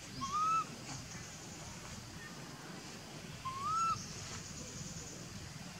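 Baby monkey crying: two short calls about three seconds apart, each a quick rise and fall in pitch.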